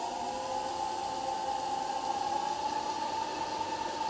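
A three-phase electric motor running steadily, belt-driving a 1920s–30s Westinghouse DC generator armature slowly on its bearings, with a steady whine and fainter hum. The rotor turns smoothly, well balanced and barely vibrating.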